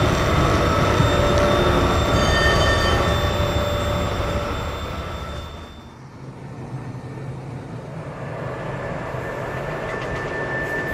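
Diesel locomotive engine running under load, from recordings of a Russian TEP70 V-engine diesel locomotive: a loud, steady drone with high whines over it. It fades down at about the middle, then carries on more quietly with a thin, steady whistle.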